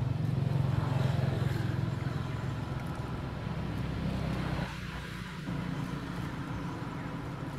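A motor vehicle engine running, a low steady hum that is loudest in the first couple of seconds and then fades.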